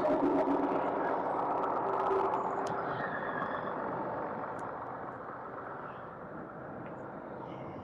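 Tractor engine running, growing gradually quieter.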